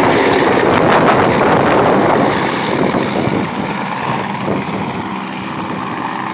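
Helicopter taking off and flying away, its rotor and engine noise loud at first and fading steadily from about two seconds in as it moves off.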